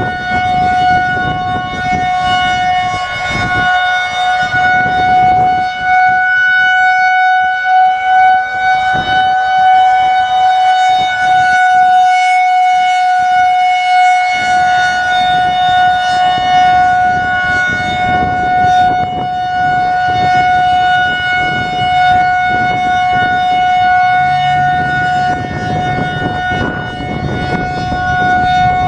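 Federal Signal 2001-130 outdoor warning siren sounding a steady, held tone for its monthly test, the pitch barely wavering. Gusty wind rumbles on the microphone underneath, easing for a few seconds in the middle.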